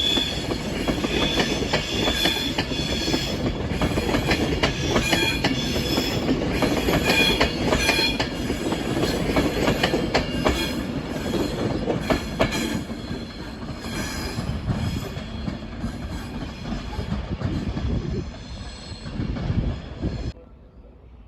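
A train running past on the track, its wheels squealing in high tones over the clatter of wheels crossing rail joints and points. It eases off over the last several seconds, then cuts off abruptly.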